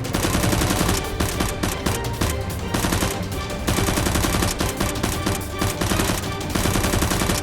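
Rapid bursts of automatic gunfire, shot after shot in quick succession, with background music underneath.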